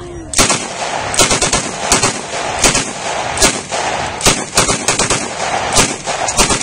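British STEN Mark II submachine gun firing 9mm blanks: a string of sharp, unevenly spaced shots, about two a second, starting about half a second in.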